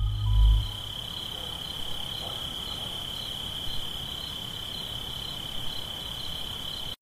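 A steady, high insect trill like a cricket's, one unbroken tone with a faint regular pulsing above it, while the low end of the music dies away in the first second. The trill cuts off suddenly near the end.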